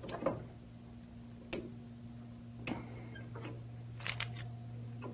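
A few light, scattered metal clicks and taps from a torque wrench and the 61SA tightening tool being worked on the 61SALP fill adapter, over a steady low hum.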